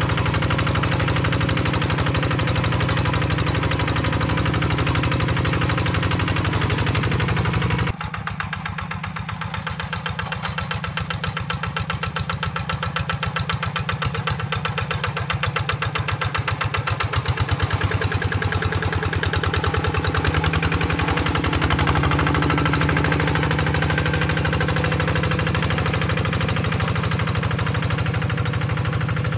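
Single-cylinder diesel engine of a two-wheel hand tractor running steadily with an even, rapid pulse while it pulls a plow through wet field soil. The sound drops suddenly about eight seconds in, then grows louder again.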